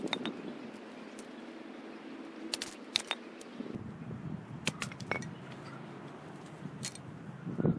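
Pine kindling being split with a knife on a chopping block: several sharp, separate cracks and taps of blade on wood, with a duller knock near the end.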